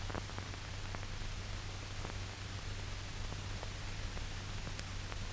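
Old film soundtrack noise: a steady hiss with a low hum and a few faint crackles.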